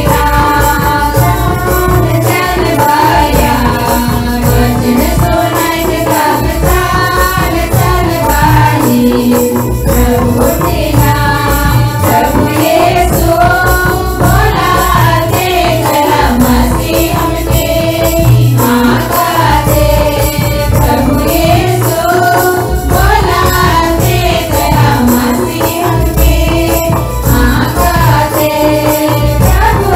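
Group singing of a Sadri Christian song over a steady drum beat with jingling percussion.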